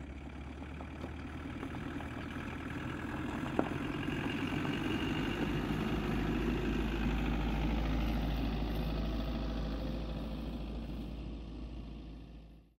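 Land Rover engine running steadily, a low hum that grows louder toward the middle, fades near the end and then cuts off abruptly.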